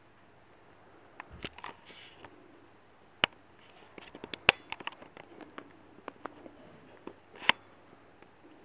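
Irregular taps, clicks and brief rustles from a tabby cat nosing and moving right against the camera, with three sharper knocks, the loudest about halfway through.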